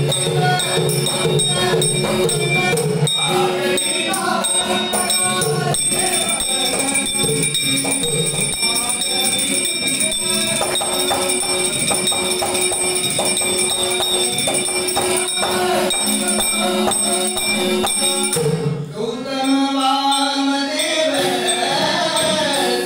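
Devotional bhajan music: a harmonium holds sustained notes while tabla and jingling hand cymbals keep a steady rhythm. A male voice sings over it, clearest near the end.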